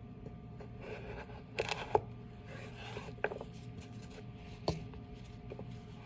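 Chef's knife cutting through a carrot on a cutting board: a few sharp knocks of the blade meeting the board, the loudest about two seconds in, with scraping and handling of the carrot pieces between them. A faint steady hum lies underneath.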